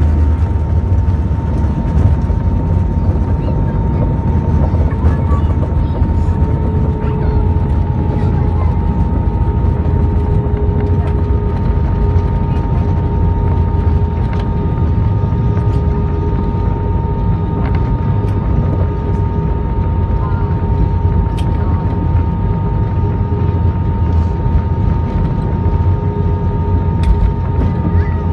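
Jet airliner's engines and rolling noise heard from inside the cabin as it moves along the runway: a steady, heavy low rumble with a constant whine above it.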